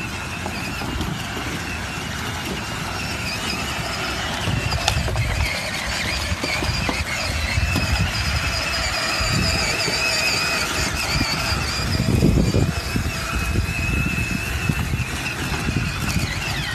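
Electric ride-on toy monster truck driving over dirt: a steady high whine from its electric drive motors and gearboxes that wavers slightly in pitch as the load changes, over a low rumble of the wheels crunching over the ground.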